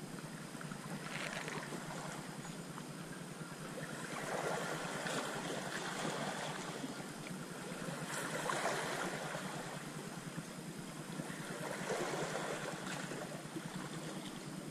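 Small waves lapping at a shallow, rocky lake shore, washing in and easing off in uneven swells, with wind rushing on the microphone.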